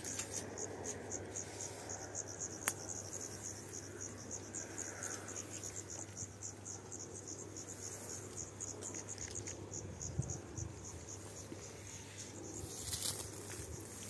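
Cricket chirping in a steady pulsed trill, about four or five high chirps a second, over a faint steady low hum.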